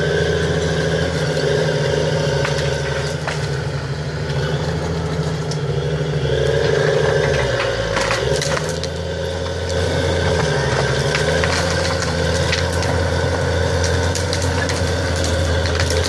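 New Holland D140 crawler dozer's diesel engine running steadily while it pushes through pine trees, with wood cracking and snapping as trunks and branches give way. The engine note drops briefly about halfway through, then recovers.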